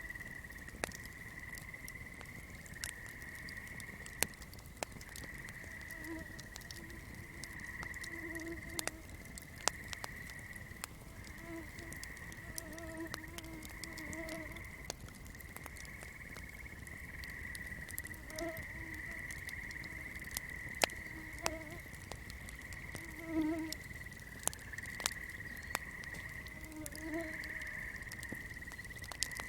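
Swamp night ambience: a steady high-pitched chorus, with low frog calls coming in short groups every few seconds. Scattered sharp pops and crackles from a burning candle run over it.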